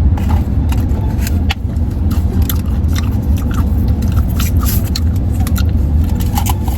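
Steady low rumble of a car heard from inside the cabin. Over it come scattered short clicks and scrapes of someone eating from plastic takeout containers with a fork.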